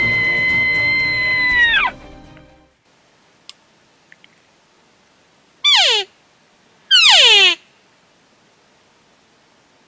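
Slide-guitar background music ends about two seconds in. Then an elk call is blown twice by mouth: two short, loud, steeply falling mews in the style of a cow elk's call, a little over a second apart.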